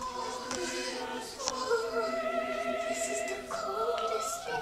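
Choir-style singing: several voices holding long notes that waver in vibrato, changing pitch every second or so.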